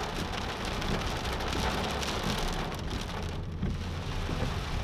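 Heavy tropical-storm rain pouring down, a dense steady hiss of drops spattering on surfaces, with a low rumble underneath. The hiss thins briefly about three and a half seconds in.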